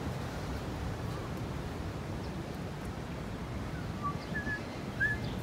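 Steady low rumble of longboard wheels rolling over paving, with several short, quick bird calls starting about four seconds in.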